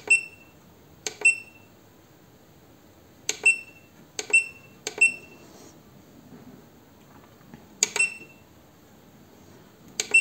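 Keypad of a WEISAN RC210E800 electronic leadscrew controller on a lathe: each button press gives a click and a short, high electronic beep. This happens about seven times at uneven intervals while a setting is being changed.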